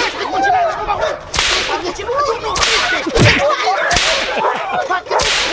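A rope used as a whip lashing four times, with sharp cracks about a second apart.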